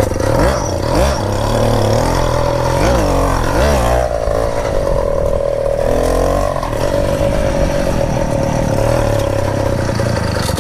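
Small two-stroke engine of a motorized bicycle running under way. Its pitch rises and falls as the throttle is worked during the first few seconds and again about six seconds in, then holds steady.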